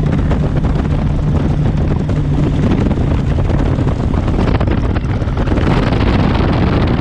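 Bass boats running at speed on open water: a steady outboard engine drone under wind buffeting the microphone and water rushing past the hull. The engine hum fades about three seconds in and a rushing hiss grows louder about halfway through.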